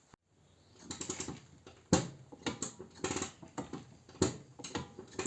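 Irregular clicking and knocking from the left rear drum-brake wheel of a Hyundai Accent, the stray noise in that wheel, with two sharper knocks about two and four seconds in.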